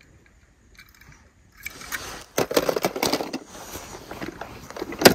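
Handling noise starting about a second and a half in: rustling and scraping, with clicks and knocks of die-cast toy cars against a plastic tub. A sharp knock near the end is the loudest.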